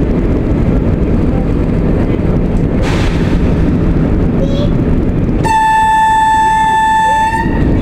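VT98 railbus under way, its diesel engine and wheels on the rails giving a steady low drone. About five and a half seconds in, the railbus sounds one long single-pitched horn blast of about two seconds.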